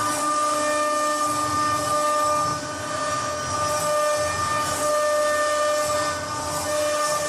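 Heavy-duty stone-and-glass CNC router running: a steady, high-pitched spindle whine over a hiss, with a lower grinding rumble that comes and goes as it cuts.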